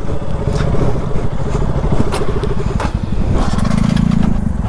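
Motorcycle engine running at low revs on a rough, rocky dirt trail, with frequent short knocks and rattles from stones and the bike jolting. About three and a half seconds in, a louder, deeper engine note comes in for about a second.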